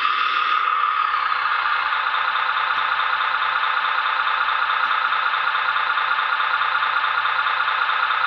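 Radio-controlled 1:14.5-scale Mercedes SK four-axle tipper truck model running, a steady fairly high hum with almost no deep bass.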